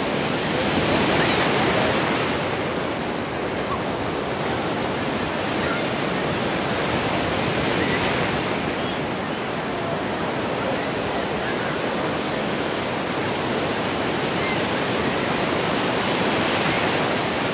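Ocean surf breaking and washing around someone standing in the shallows: a steady rush of foaming water that swells louder a few times as waves come in.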